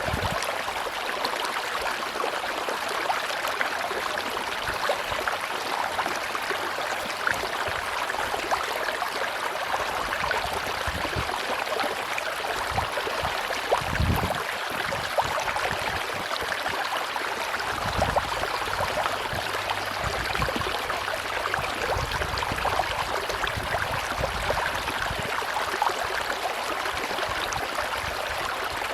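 River water rushing and gurgling steadily over rocks, with occasional low thumps from the current.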